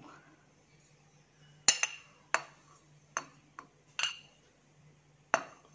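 Metal spoon clinking against a glass bowl while grated coconut is scraped into a steel mixer-grinder jar: about six sharp clinks, irregularly spaced.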